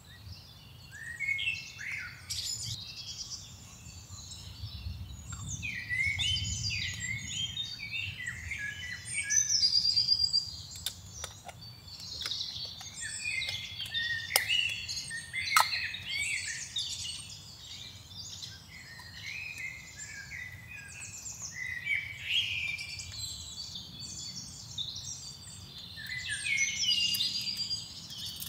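Several wild songbirds chirping and singing over one another, a steady run of short quick calls and trills, with a few sharp clicks about halfway through.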